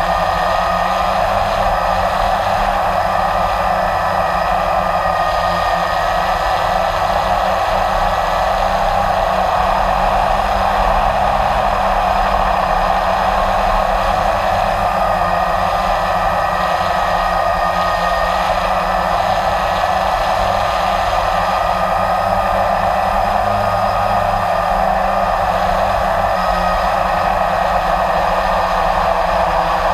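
Blade 350 QX3 quadcopter's electric motors and propellers whirring steadily in flight, heard close up from the drone's own onboard camera.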